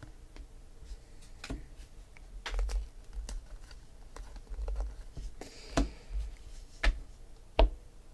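Baseball cards being flipped and slid off a stack by hand, with irregular soft flicks and clicks of card on card and a few sharper snaps in the later part.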